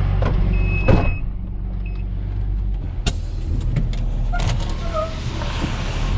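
Tow truck engine running steadily. About a second in there is a single loud thump, after which the higher sounds become muffled, followed by a few sharp clicks.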